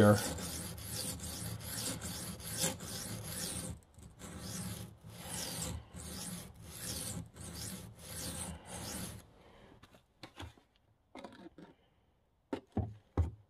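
A steel knife blade stroked back and forth across a coarse sharpening stone, about two scraping strokes a second, stopping about nine seconds in. After that there are only a few faint short sounds as water is poured onto the stone.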